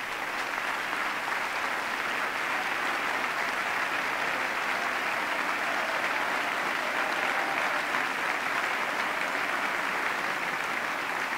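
Large audience applauding, a steady, sustained ovation.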